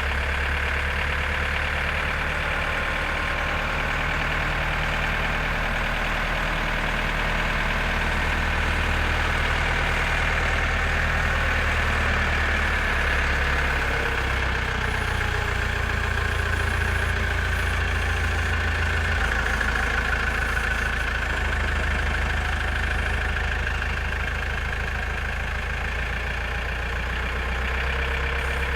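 JCB 4CX backhoe loader's diesel engine running steadily, a low engine note with a steady high whine over it.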